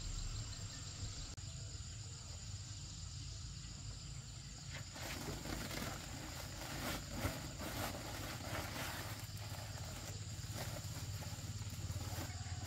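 A woven plastic sack rustling and crackling as it is pulled out and lifted, starting about five seconds in, over a steady high insect drone and a low rumble.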